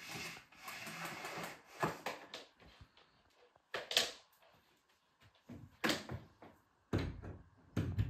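Rustling and a few sharp knocks and clicks as a vacuum cleaner's power cord is pulled out and handled, with the vacuum's motor not running.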